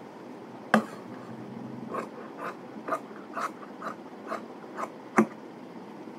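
Large tailor's shears cutting through woollen trouser cloth on a cutting table: a run of short, sharp snips about two a second, with a louder knock near the start and another near the end.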